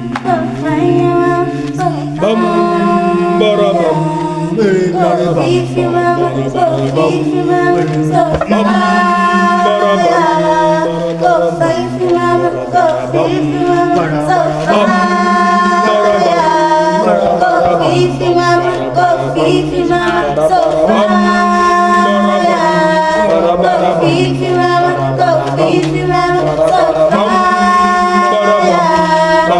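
An a cappella vocal group singing in close harmony, several voices holding chords that shift every couple of seconds over a low bass part.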